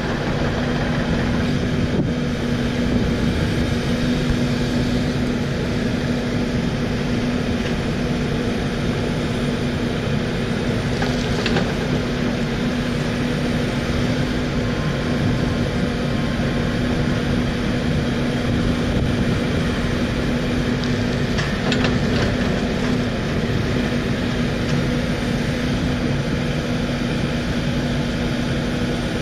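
Diesel engine of a Takeuchi TB1140 excavator running steadily while the machine works its arm and bucket, a constant low hum with no change in pace.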